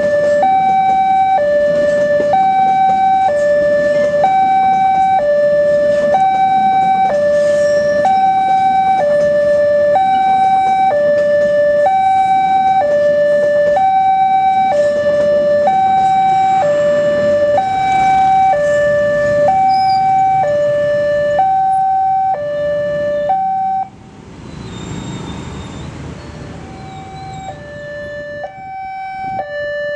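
Railway level-crossing alarm sounding a two-tone warning, a higher and a lower tone alternating about once a second, over the rumble of a passing passenger train. The alarm cuts off abruptly about 24 seconds in and starts again a few seconds later.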